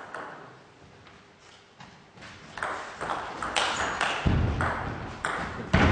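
Table tennis rally: the ball clicks off rackets and table in a quick, regular exchange, starting about two seconds in. Near the end come two heavier low thuds.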